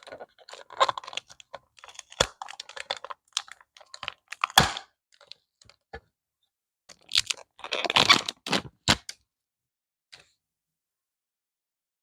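Stationery and packaging being handled by hand: an irregular run of clicks, taps and rustles, with a denser cluster about eight seconds in, then quiet for the last few seconds.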